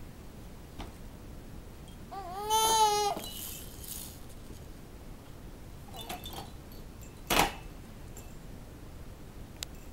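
Baby making one high-pitched drawn-out vocal sound, a squeal of about a second, a few seconds in. Later come a few faint clicks and one sharp knock.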